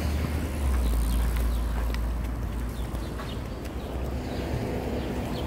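City street ambience: a low rumble of traffic, heaviest in the first couple of seconds, with light clicking footsteps on the pavement.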